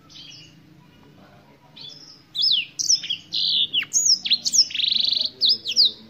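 Black-throated canary singing: a faint note at the start, then about two seconds in a loud, fast phrase of high whistled notes that sweep sharply up and down, with a buzzy trill near the end of the phrase.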